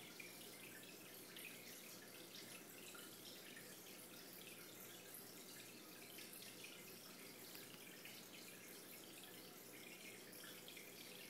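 Faint, steady trickle and drip of aquarium water, with a low hum underneath.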